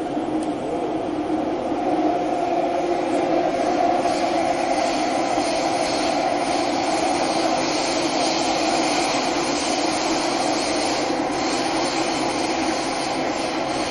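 Cabin noise of a Thomson-East Coast Line CT251 metro train running between stations in its tunnel: a steady rumble and hum of wheels and running gear, holding an even level.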